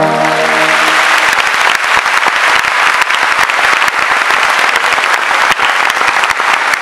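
Audience applauding, dense and steady, as the last chord of a brass band dies away in the first second.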